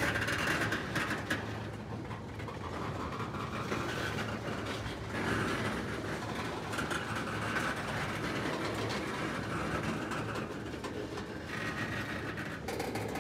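Loaded tank cars of a freight train rolling past, steel wheels running steadily on the rails.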